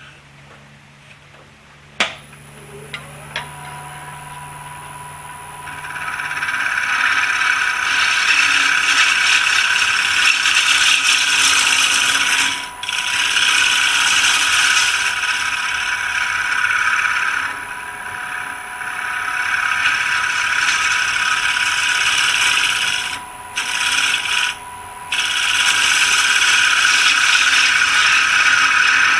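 Wood lathe spinning a black walnut coaster blank while a turning tool cuts across its face: a loud, steady scraping hiss over a faint motor whine. The cut starts about six seconds in and stops briefly a few times as the tool lifts off. A single sharp click comes about two seconds in.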